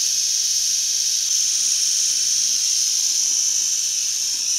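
Small battery-powered electric eyebrow trimmer running on the brows with a loud, steady high-pitched buzz. It cuts off suddenly near the end.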